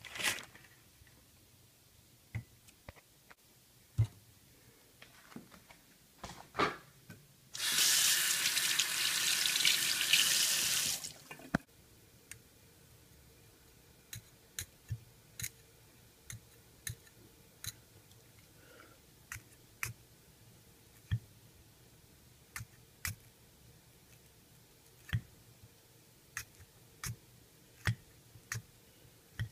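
Kitchen tap running for about three and a half seconds, starting about a quarter of the way in. Before and after it come scattered light clicks and knocks.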